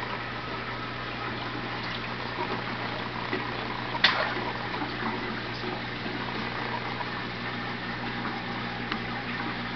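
Aquarium water pump running with a steady low hum under a constant rush of circulating water, with one sharp knock about four seconds in.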